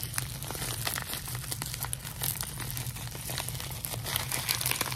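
Plastic bubble-wrap packaging crinkling and crackling as hands work it open around a fidget spinner.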